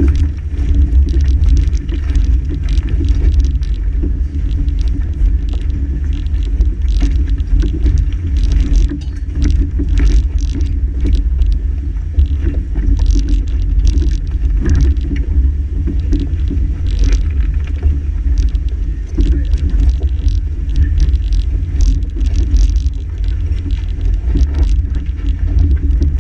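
4WD driving over a rocky dirt track, heard from outside the vehicle: a steady low rumble and engine hum, with frequent short clicks and crunches of loose stones under the tyres.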